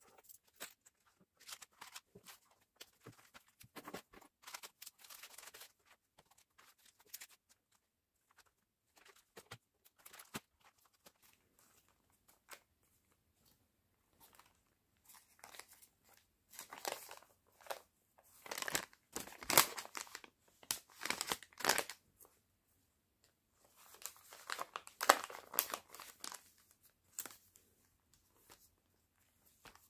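Pages of a thick, stuffed collage file being leafed through by hand: layered paper and stuck-on pieces rustling and crinkling in irregular bursts, loudest in two spells in the second half.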